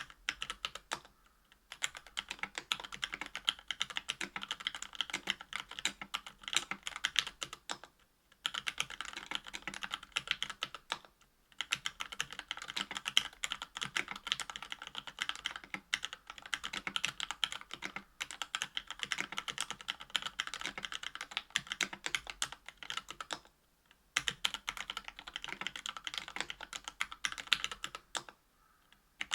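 Continuous fast typing on a 65% aluminium mechanical keyboard (KBDfans Tofu) with Matrix Lab FFFF 62 g linear switches and GMK keycaps: a dense run of keystroke clacks, broken by short pauses of about a second a few times.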